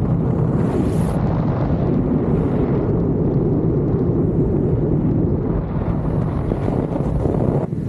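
Airflow rushing over the camera microphone as a skydiver flies under an open parachute canopy: a loud, steady, rumbling rush of wind. It drops away abruptly for a moment just before the end.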